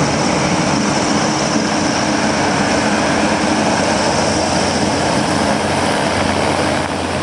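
Griffon 12000TD passenger hovercraft coming ashore from the sea onto a shingle beach: its twin ducted propellers and lift fans run with a loud, steady drone over the hiss of air and spray. A deeper hum comes in about six seconds in.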